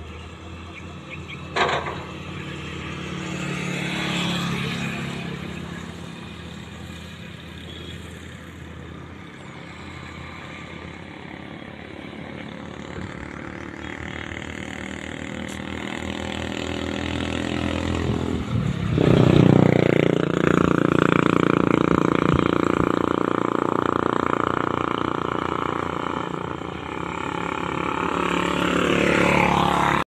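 Road traffic: motor vehicle engines, likely motorcycles, passing on the road. One grows louder over several seconds, is loudest from about two-thirds of the way through, and eases off near the end. There is a short sharp click near the start.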